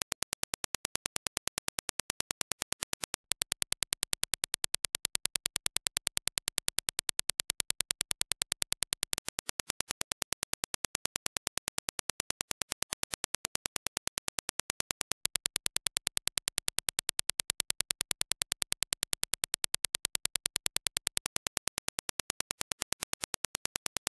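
Reference Dirac impulse test signal: a rapid, even train of sharp clicks that steps between a louder and a softer level about every six seconds.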